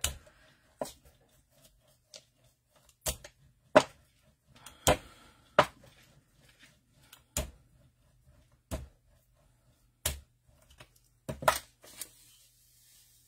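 A gel printing plate pressed down by hand onto paper on a tabletop: about a dozen sharp taps at uneven intervals, roughly one a second, transferring the stamped ink from the plate to the paper.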